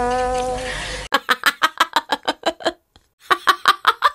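A held tone for about the first second, then a woman laughing hard in rapid repeated bursts, breaking off briefly near the middle before laughing on.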